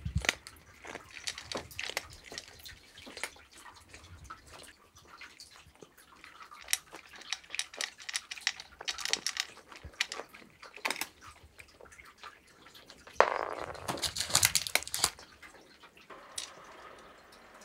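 A tortoiseshell cat's small wet mouth clicks and smacks as she sniffs and licks at pieces of dry cat food held out by hand without eating them, with a louder burst of noise about two-thirds of the way through.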